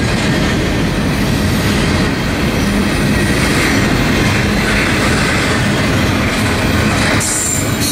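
Freight train's double-stack intermodal well cars rolling past: steady rumble and clatter of steel wheels on the rails, with a brief high squeal near the end.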